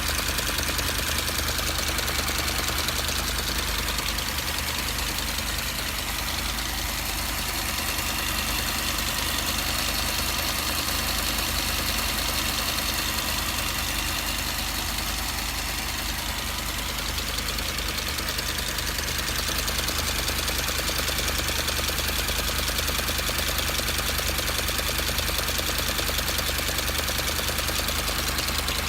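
Mercedes-Benz W245 B-Class engine running steadily with a fast, even knocking noise throughout. The owner cannot place the noise: the car is serviced, shows no error codes, and also vibrates.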